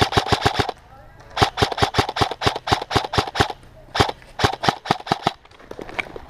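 Airsoft electric rifle firing on full auto: three bursts of rapid, evenly spaced shots at about ten a second. The first burst ends under a second in, the second runs about two seconds and the third just over one. A few faint ticks follow near the end.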